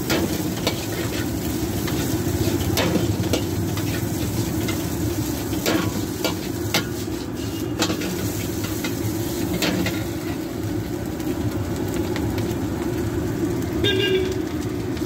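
Fried rice with vegetables sizzling in a steel wok, stirred and tossed with a metal ladle that scrapes the pan and clacks against it now and then, over a steady low rumble.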